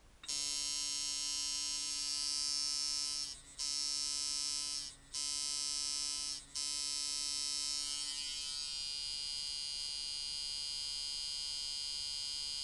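A 2005 Micky Sharpz T-Dial coil tattoo machine with 8-layer Wesley Verity coils, set up as a liner, buzzing at 5 volts and about 144 cycles a second. It starts a moment in, cuts out briefly three times over the next several seconds, then runs steadily.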